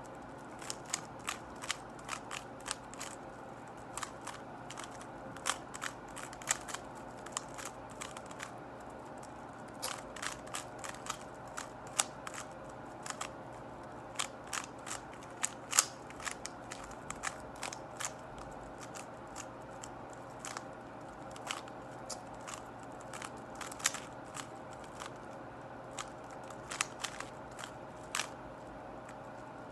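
Plastic clicking of a MoYu Weilong GTS2M speed cube being turned, the layer turns clacking in quick irregular runs with brief pauses between them.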